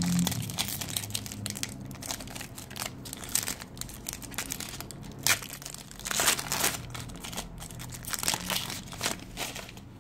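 Foil wrapper of a Panini Diamond Kings baseball card pack being torn open and crinkled by hand. It gives irregular crackles throughout, with louder rustles about five and six seconds in.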